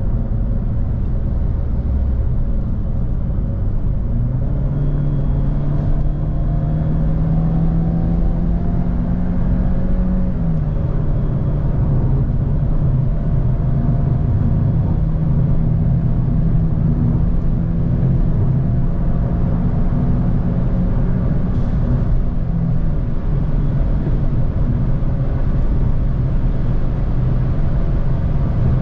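Citroën DS4's 1.6-litre turbo petrol engine under hard acceleration, heard from inside the car over steady road and tyre rumble. The engine note climbs from about four seconds in, drops at an upshift about ten seconds in, then holds fairly steady.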